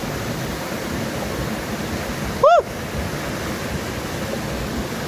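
Steady rushing noise of a flooded river in spate. About halfway through, one short high call rises and falls.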